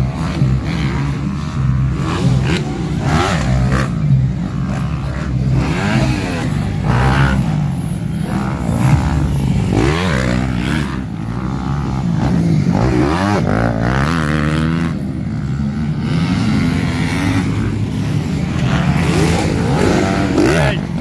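Motocross dirt bikes racing on a dirt track, their engines revving up and dropping in pitch again and again, over a steady low hum.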